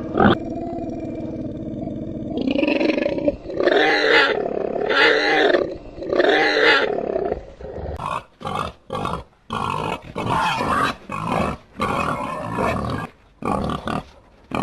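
Wild boar calling: a steady low growl, then three or four long drawn-out calls, then from about eight seconds in a quick run of short calls, roughly one or two a second.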